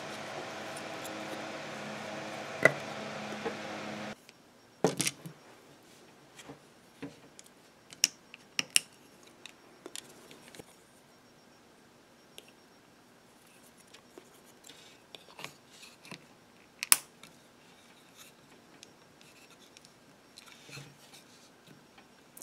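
Hands handling and fitting small 3D-printed plastic parts: scattered sharp clicks and taps, the loudest about 17 s in. A steady hum fills the first four seconds and cuts off suddenly.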